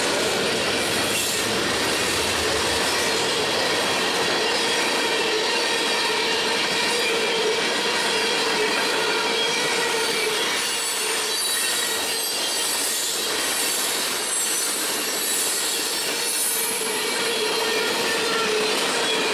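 Loaded freight train of tank cars and boxcars rolling past at steady speed: a continuous rumble of steel wheels on rail, with high-pitched wheel squeal coming and going over it, stronger past the middle.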